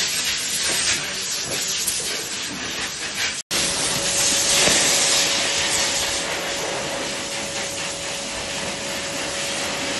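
High-velocity pet grooming dryer blowing air through its hose and nozzle onto a dog's coat: a loud, steady hiss. It cuts out for an instant about three and a half seconds in, then carries on with a faint steady whine under the hiss.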